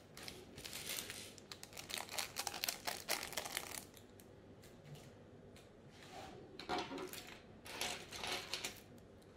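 Loose plastic LEGO pieces clicking and rattling against each other and the wooden tabletop as hands rummage through a pile, with some crinkling of a clear plastic parts bag. A dense run of clicks for about four seconds, a pause, then two shorter bursts near the end.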